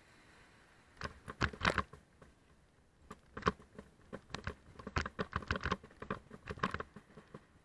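Mountain bike clattering and rattling as it rides down a stony trail and over wooden planks: clusters of sharp knocks and clicks, starting about a second in.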